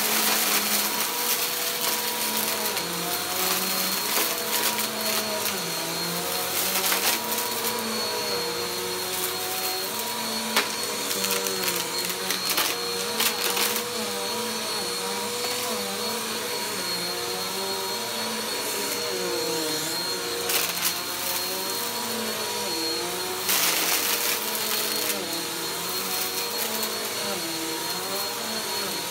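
Bagless upright vacuum cleaner running on carpet, its motor whine steady and its lower hum wavering in pitch as it works. Scattered sharp clicks and crackles come as loose debris is sucked up, with a busier patch of them near the end.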